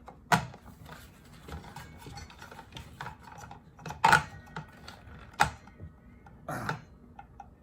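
Hard clicks and knocks of hands working the Ryobi cordless circular saw's blade fittings and housing during a blade change: about four sharper knocks spread out, with small ticks between.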